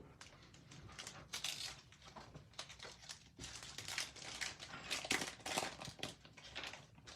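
Wrapper of a football trading-card pack being torn open and crinkled in the hands, an irregular run of crackling rustles as the pack is opened and the cards are slid out.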